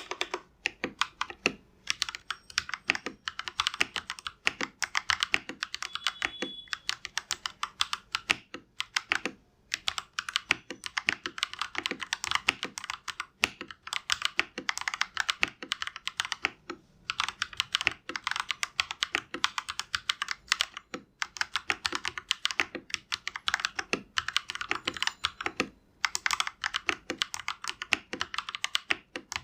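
Typing on a GAMAKAY LK67 mechanical keyboard fitted with Akko Lavender Purple tactile switches: fast, continuous keystrokes broken by short pauses every few seconds.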